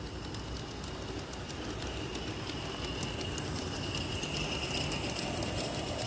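Large-scale model steam train rolling past on garden-railway track, its wheels clicking over the rail joints, growing slightly louder as it comes near.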